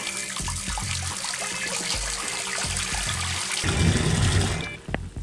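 Tap water pouring into a laundry sink, splashing onto a mounted GoPro and churning as the basin fills, louder and deeper about four seconds in; the flow stops shortly before the end. Background music with a steady beat plays underneath.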